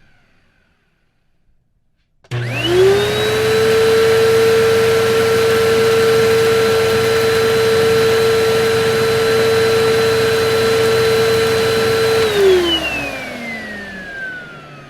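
Vacuum cleaner switched on about two seconds in: its motor spins up within a fraction of a second to a steady whine over a hiss of rushing air and runs for about ten seconds. It is then switched off and winds down, the whine falling in pitch as it fades.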